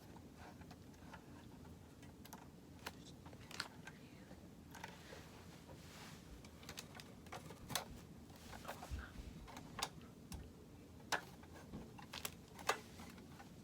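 Parts of a Sunpak 19-inch ring light and its tripod stand clicking and knocking as they are handled and fitted together: irregular light clicks, the two sharpest near the end, over a low steady background hum.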